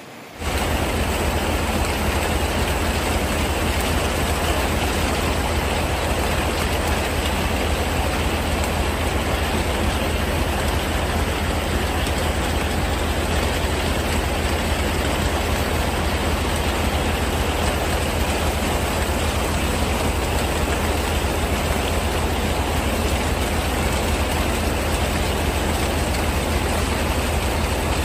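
Rushing floodwater: a loud, unchanging rush with a deep rumble beneath it.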